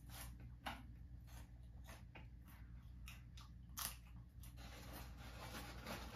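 Near silence: room tone with a steady low hum and a few faint scattered clicks.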